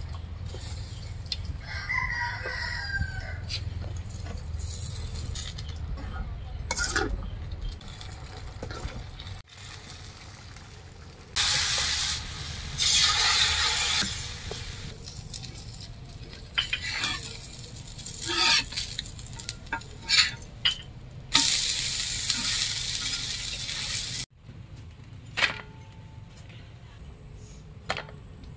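Pearl-millet dosa batter sizzling on a hot cast-iron tawa, loud in two spells, about a third of the way in and again near the end. Short clinks and scrapes of a ladle come between the spells.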